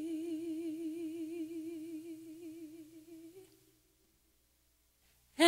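A sung note held with steady vibrato, fading away over about three and a half seconds, then a pause of near silence before music starts loudly right at the end.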